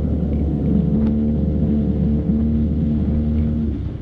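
Fishing boat's motor running steadily, then falling away sharply near the end.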